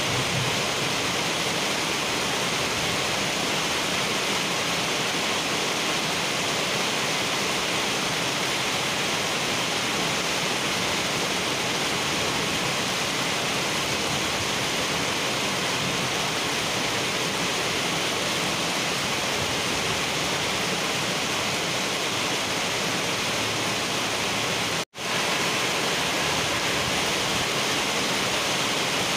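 Heavy rain pouring steadily onto a wet asphalt road, an even hiss of drops splashing into standing water. The sound cuts out for a split second about 25 seconds in.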